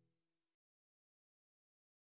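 Near silence: the last faint trace of the song's closing chord dies away and cuts to total silence about half a second in.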